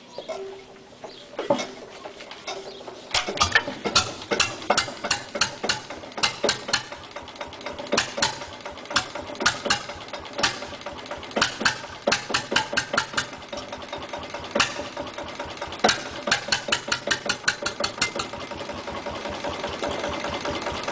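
Small single-cylinder diesel engine firing up about three seconds in and running with a slow knocking beat, about four strokes a second. The beats come faster and blend into a steadier run near the end.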